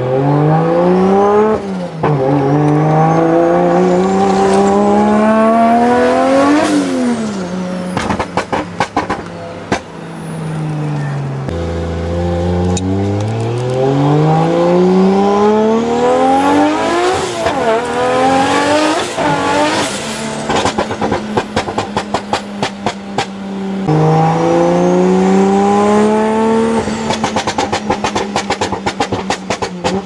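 Nissan Skyline R34's straight-six with a straight-piped exhaust, heard from inside the cabin. The engine revs hard through the gears in several rising pulls, and between the pulls the exhaust gives rapid runs of pops and crackles.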